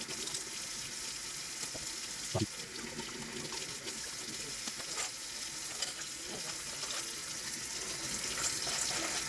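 Tap water running steadily into a sink while plastic keyboard keycaps are rinsed under it, with a few light clicks and knocks, the clearest about two and a half and five seconds in.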